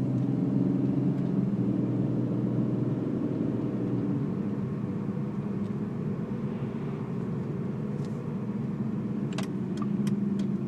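2004 BMW 325i E46 straight-six idling with a steady low drone, the idle noise and vibration that the owner says stops with a slight touch of throttle. A few sharp clicks come near the end.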